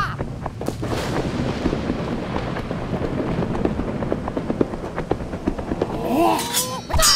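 Dense crackling made of many rapid small pops and cracks, with a few short gliding tones about six seconds in and sharp strokes near the end.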